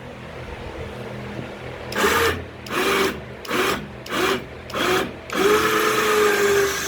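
Impact wrench run in five short bursts and then one longer burst, a rattling whine that spins up at the start of each, backing out an exhaust bolt.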